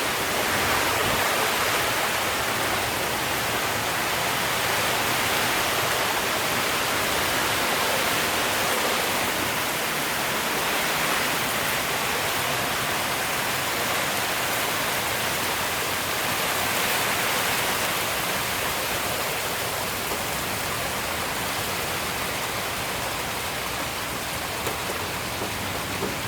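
Heavy wind-driven rain from a hurricane band, a steady rushing hiss that swells slightly now and then with the gusts.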